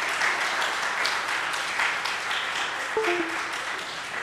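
Congregation applauding, the clapping slowly tapering off. About three seconds in, a few short musical notes sound.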